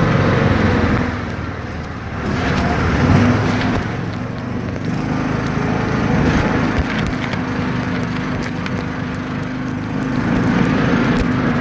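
Utility vehicle's engine running steadily as it drives along a dirt track, with scattered knocks and rattles from the vehicle jolting over bumps.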